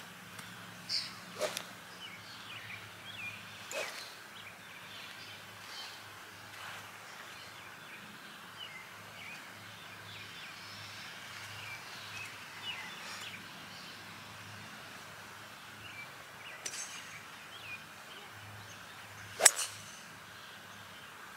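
Birds chirping over a faint low hum, with a few soft knocks and, near the end, one sharp loud crack of a golf club striking the ball.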